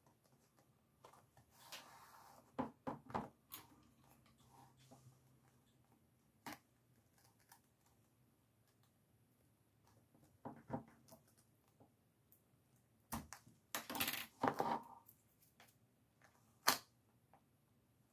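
Quiet handling of paper and craft materials on a work table: scattered light clicks and taps with short rustles of paper, busiest in a cluster about three-quarters of the way through.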